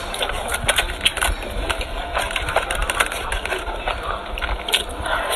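Close-miked eating sounds: a whole roast chicken being pulled apart by hand and chewed, with many short crackles and scrapes from the aluminium foil under it.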